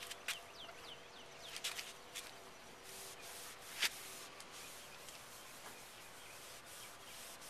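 Cloth scrubbing toothpaste over an oxidized plastic headlight lens to polish it, a steady rubbing hiss from about three seconds in. Before that, a few sharp clicks and faint short chirps.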